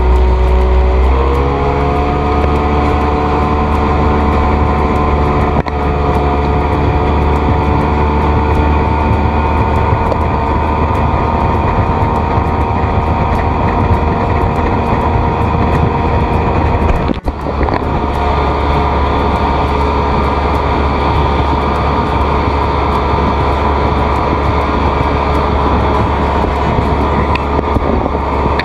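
Motorboat engine running under way, its pitch rising about a second in as it speeds up and then holding steady over a steady rushing hiss.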